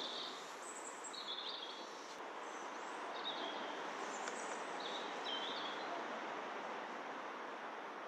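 Steady outdoor background noise with a small bird chirping in short, high notes, about half a dozen times over the first six seconds.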